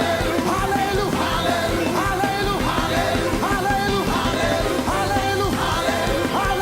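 Live gospel praise-and-worship music: a band playing with voices singing over it.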